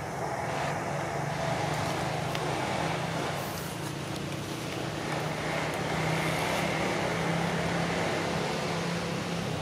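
Steady background hiss with a low droning hum, typical of distant motor traffic.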